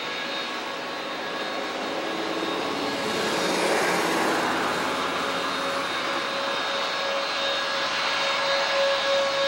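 Lockheed C-5 Galaxy's General Electric TF39 turbofan engines running at low power as the transport taxis past: a steady rush of jet noise with a steady whine, swelling about three to four seconds in.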